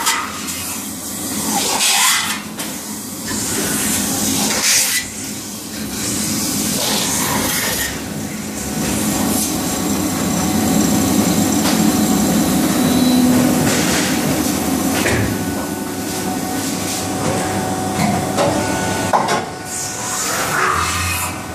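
Factory machinery noise from a robot-loaded Leifeld metal spinning machine cell: several short hissing bursts over a constant mechanical din, with a steadier low machine hum swelling in the middle.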